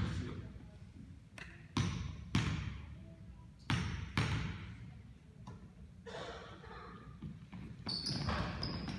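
Basketball bouncing on a gym floor: about four sharp bounces in the first half, each echoing in the hall.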